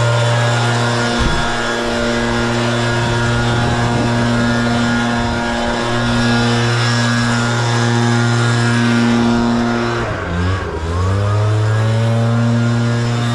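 Gas-powered leaf blower running steadily at high throttle while blowing debris clean. About ten seconds in, the engine briefly drops in pitch as the throttle is eased, then revs back up.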